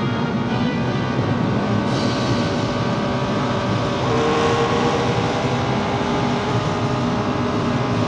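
Racing car engines at speed: a dense, steady motor noise with shifting engine pitches, and a brighter hiss that comes in about two seconds in.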